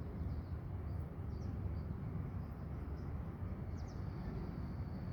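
Outdoor yard ambience: a steady low background rumble with a few faint, short bird chirps scattered through it.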